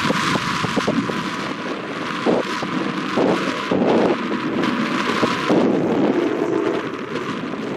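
Strong wind buffeting the microphone, over the sound of a double-deck passenger train running past on the tracks.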